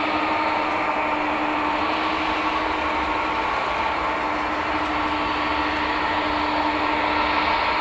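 Twin turbofan engines of a Boeing 777 at taxi idle, a steady jet whine with several held tones over a rushing hiss.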